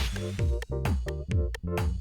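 Electronic background music with a steady beat and pulsing synthesizer bass notes.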